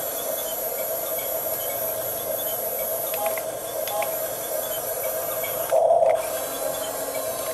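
Small electric motors of a Huina 1569 RC toy bulldozer, a steady whine over hiss, with a brief louder surge a little before six seconds in.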